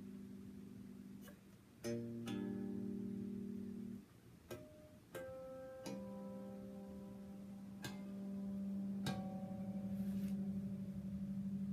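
Taurus T-24 four-string electric bass, played straight into a Marshall Micro Bass amp driving a BE215 cabinet: single plucked notes and double-stops left to ring. From about six seconds in, one note is held for a long time, swelling slightly and wavering near the end.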